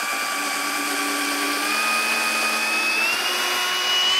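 Hilti SFE 2-A12 12-volt cordless drill driver running steadily as it drills a hole into a wooden board with a metal twist bit. The motor whine creeps slowly upward in pitch and gets a little louder.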